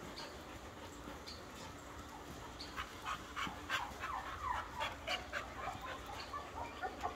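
A dog whimpering: a quick run of short, high whines, many falling in pitch, that starts about two and a half seconds in, with faint clicks.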